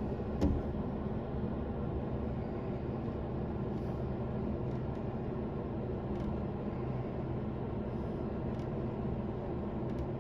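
Car running, a steady low engine and road hum, with one short knock about half a second in.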